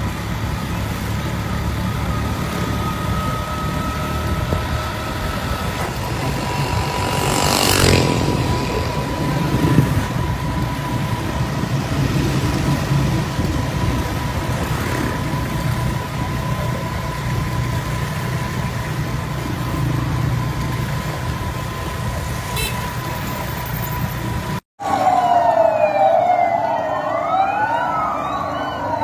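Engines of a column of patrol vehicles running, with a steady high tone over them and a loud passing whoosh about eight seconds in. Near the end, after a short break, a vehicle siren starts wailing up and down in quick sweeps.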